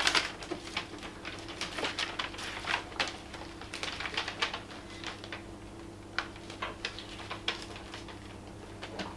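Snorkel cutting template sheet and its masking tape crinkling and crackling in irregular small clicks as the sheet is pressed and smoothed against a car's front guard, over a steady low hum.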